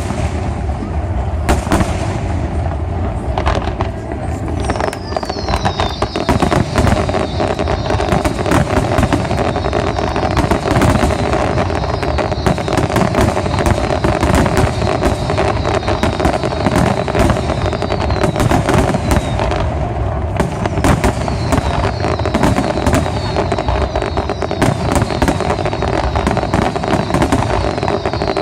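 Aerial fireworks display going off continuously: dense crackling and bangs, with a run of short, high, falling whistles repeating from about five seconds in.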